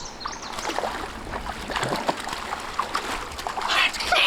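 Shallow water splashing and trickling, with many small sharp splashes and drips and a louder splash near the end.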